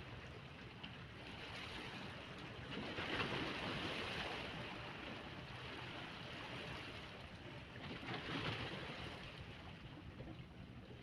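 Sea water rushing and splashing, with wind on the microphone, swelling louder twice, about three seconds in and again near eight seconds.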